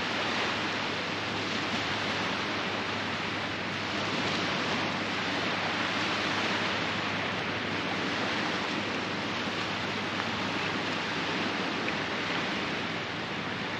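Steady hiss of surf washing on a sandy beach, swelling and easing slightly.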